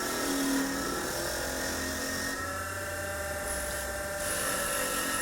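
Wire buff wheel running with a steady motor whine as the steel tip of a stump grinder tooth is held against it to brush off dirt. The sound shifts a little about two seconds in.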